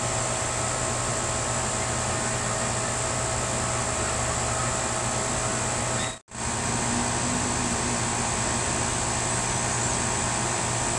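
Steady rushing noise with a low hum, broken by a brief cut about six seconds in.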